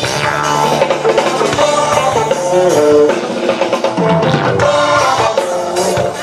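Rock band playing live: a melodic electric guitar line over drum kit and bass.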